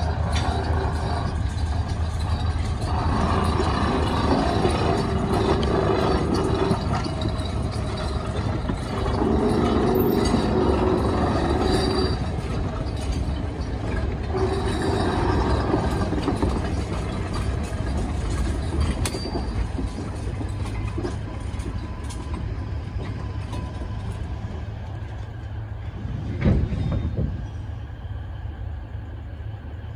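Slow train movement during shunting on the Alishan Forest Railway: a diesel locomotive's engine runs with a steady low hum, with louder stretches of rolling wheel and rail noise, and a single sharp clank about 26 seconds in.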